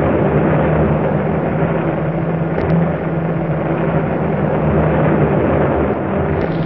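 Steady engine drone, a continuous noise over a low hum, on an old film soundtrack.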